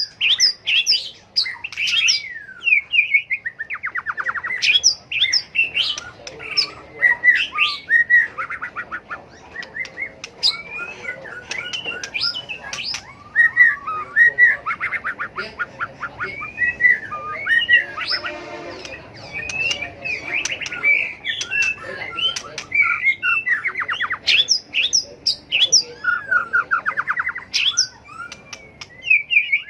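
White-rumped shama singing almost without pause: a string of varied whistled phrases broken by rapid trills.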